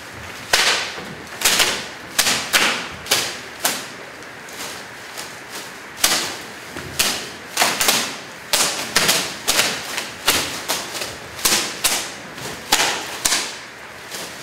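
Bunches of leafy branches beating and swishing on a wet, leaf-strewn stage floor: a long irregular series of sharp splashy slaps, one or two a second, thinning out in the middle and then coming thick again.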